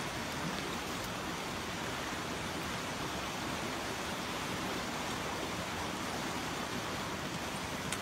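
Steady rushing of a flowing river, an even hiss with no breaks.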